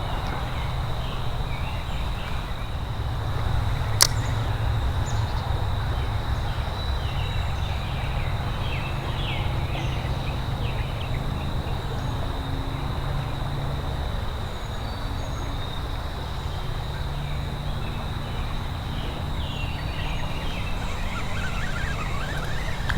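Outdoor ambience: a steady low rumble with scattered short bird chirps over it, and one sharp click about four seconds in.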